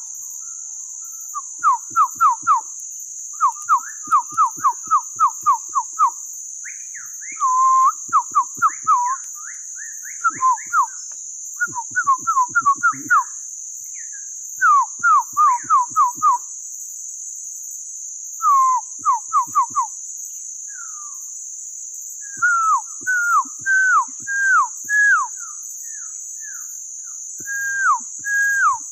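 Bird-call imitation whistled with a man's mouth to lure birds: bursts of short, downward-sliding whistled notes, several a second, with pauses between the runs. A steady high insect drone runs underneath.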